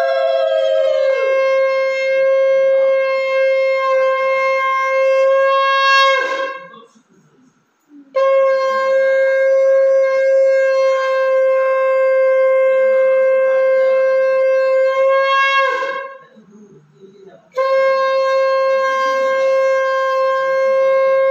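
Conch shell (shankha) blown in long, steady, horn-like blasts, three in all, each ending with a quick drop in pitch, with short pauses for breath between them.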